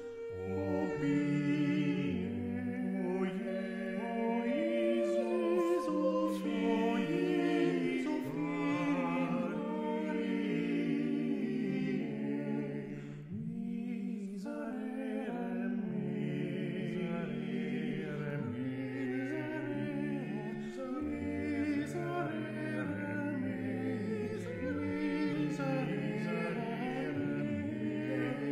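Unaccompanied choir singing in several voice parts, holding and changing chords, with a short break between phrases about halfway through.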